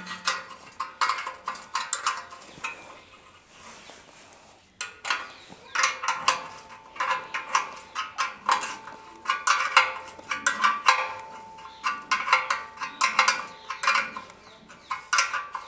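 Two steel spanners, 10-12 mm, clinking on the silencer's mounting nut and bolt as the nut is worked loose: a string of light metallic clicks and knocks, with a pause of about two seconds a few seconds in.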